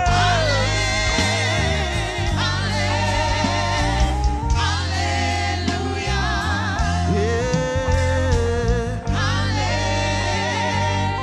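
Live gospel praise music: a choir and worship singers singing with vibrato over a band with steady bass.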